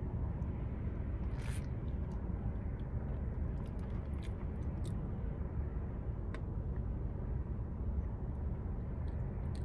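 Steady low rumble of a car idling, heard from inside the cabin, with a few faint clicks and a brief rustle.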